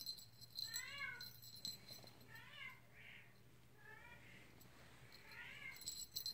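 Adult Bengal cat, the kittens' mother, meowing over and over: about five short calls, each rising then falling in pitch, roughly one a second.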